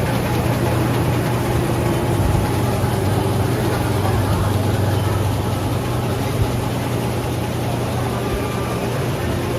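Steady low mechanical drone, like an idling or running vehicle engine, holding at an even level under a constant background noise.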